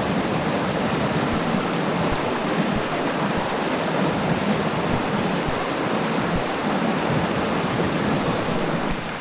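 Rain-swollen mountain stream rushing steadily. The sound cuts off suddenly near the end.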